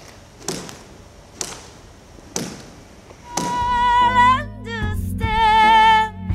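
Soundtrack music: sharp cracks, each with a short ringing tail, come about once a second. About halfway through, a high singing voice with vibrato enters over sustained low accompaniment.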